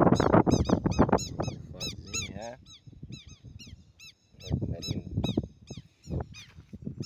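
Birds calling in rapid, repeated high chirps, several a second, over louder rough, noisy sounds that fade out about two and a half seconds in and come back briefly near the middle.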